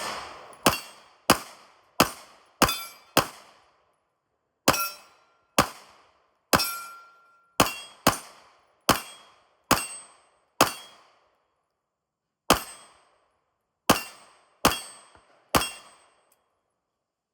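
A string of about seventeen pistol shots from a compensated, ported Springfield Echelon, fired at an uneven pace of roughly one to two a second, with a pause of about two seconds past the middle. Some shots are followed by a brief metallic ring.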